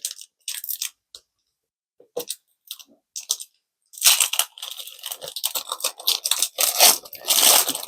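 Foil Pokémon card booster pack wrapper crinkling as it is handled: scattered short crackles at first, then continuous crinkling from about four seconds in, loudest near the end.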